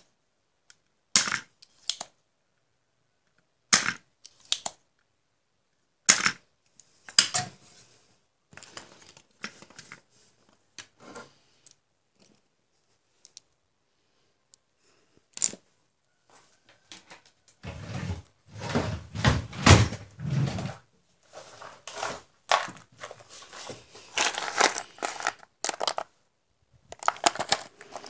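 Spring-loaded desoldering pump fired again and again to suck solder off a circuit board: sharp single snaps, about eight in the first seven seconds. In the second half, loose electrolytic capacitors and components clatter and rattle as a hand handles and rummages through a box of them, with a few heavier knocks.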